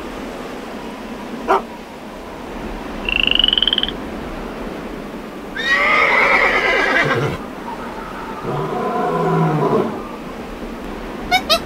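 A string of separate animal calls with pauses between them. The loudest is a horse whinnying about six seconds in. Before it come a short click and a brief trilling call, after it a lower drawn-out call, and near the end a few short high calls from a chimpanzee.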